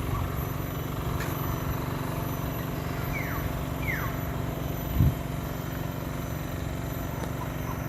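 Steady low rumble of road traffic, with a bird giving two short falling whistles about three and four seconds in, and a soft low bump a second later.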